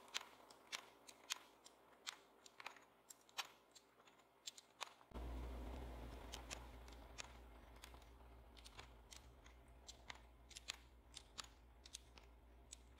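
Plastic keycaps being pushed and snapped onto the key stems of a vintage Apple Macintosh keyboard: a run of small sharp clicks, several a second and unevenly spaced. About five seconds in, a low hum comes in underneath.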